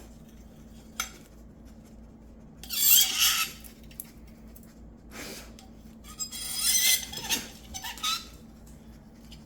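Warmed metal spoon pressed onto dry ice, screeching and crying in two loud spells, about three seconds in and again from about six to seven and a half seconds, with a few smaller clicks. The warm spoon turns the dry ice to gas under it, and the gas makes the spoon vibrate.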